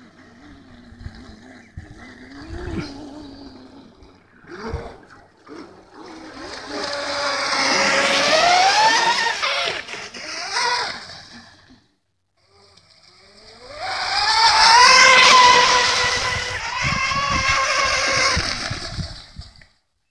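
Dragon Hobby Mini Cat 820 EP electric RC racing catamaran, its twin Leopard 3660 brushless motors on 4S whining at high speed in two fast passes. Each pass rises in pitch as the boat speeds up, then holds a steady high whine.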